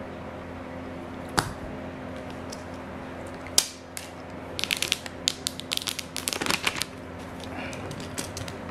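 Clear plastic shrink-wrap on a phone box being picked and peeled off by hand: a sharp click about a second and a half in, another a couple of seconds later, then a quick run of crinkling crackles.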